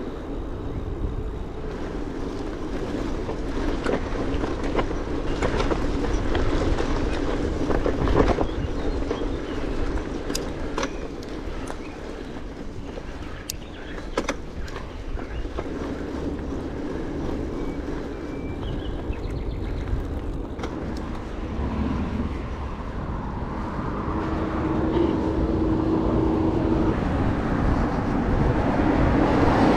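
Bicycle riding noise: a steady rumble of tyres and wind with scattered clicks and rattles, and a short steady hum for a few seconds near the end.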